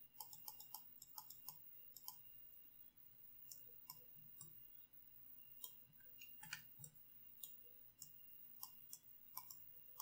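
Faint, irregular computer mouse clicks, a quick run of them in the first second and scattered single clicks after.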